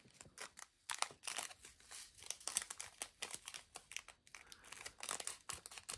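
Small plastic bags of diamond-painting drills crinkling as they are handled, with many quick, irregular clicks and crackles.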